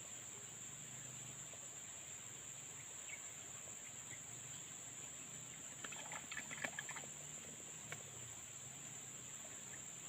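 Steady high-pitched insect drone. About six seconds in there is a brief cluster of crackling rustles, then a single click near the end, as dry grass and stalks are handled at the hole.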